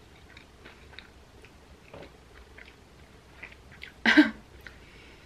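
Close-up mouth sounds of a person chewing a soft bao bun with deep-fried chicken: small scattered wet smacks and clicks. About four seconds in there is one short, much louder sound.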